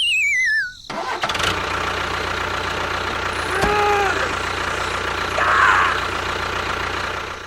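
A falling, warbling whistle in the first second, then a steady engine-like running sound, with a short pitched tone about halfway and a brief chirp near the end.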